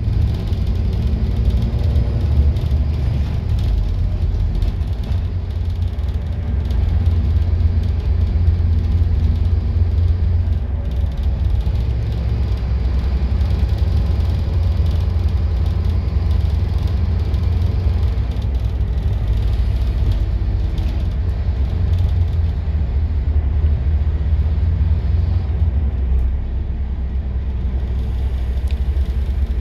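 Scania N230UD double-decker bus's engine and running noise heard from inside the passenger saloon, a steady low rumble. It eases slightly near the end.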